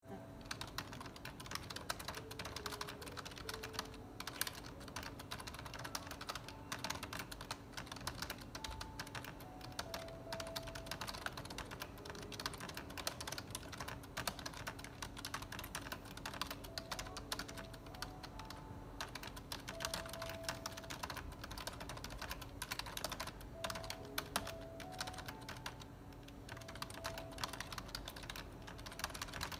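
Fast, even touch-typing on a full-size computer keyboard: a steady stream of key clicks at about seven to eight keystrokes a second, a typing speed of roughly 270 characters a minute.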